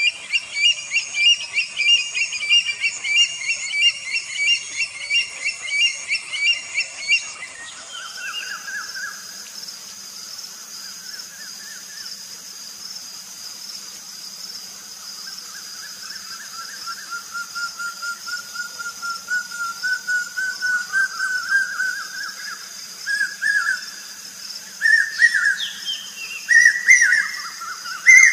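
Birds chirping and whistling: quick repeated chirps for the first several seconds, then whistled calls over a steady high whine, coming louder and closer together toward the end.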